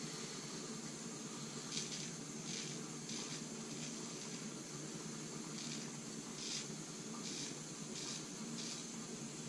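Dovo 6/8 straight razor scraping through lathered beard stubble in about eight short strokes with brief pauses between them, over a steady low hum.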